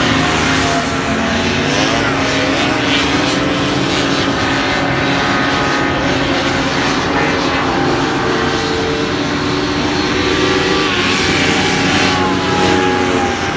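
Several Formula 1 racing hovercraft running at once, their engines and propellers making a loud, steady drone of overlapping pitches that slide up and down as the pilots throttle through the course.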